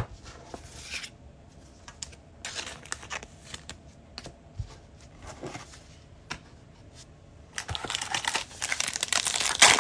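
Foil trading-card pack crinkling as it is handled, growing louder and denser in the last two seconds or so. Before that, only scattered faint clicks and rustles.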